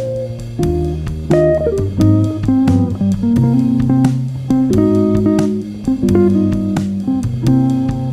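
Instrumental music: plucked guitar notes over a bass line, changing note every half second or so, with no singing.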